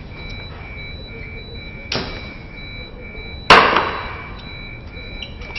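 Elevator overload alarm beeping in a steady, rapid repeat, the sign that the car is over its weight limit. Two sudden thuds cut across it, one about two seconds in and a louder one about a second and a half later with a short ringing tail.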